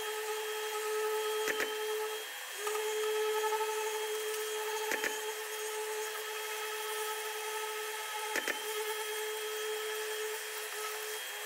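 Random orbital sander running on a car body panel: a steady whine over a hiss. It drops out briefly about two seconds in and comes back, and a short tick sounds about every three and a half seconds.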